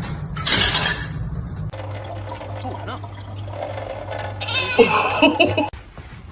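A cat meowing: several short calls about five seconds in, after a brief burst of hiss-like noise near the start.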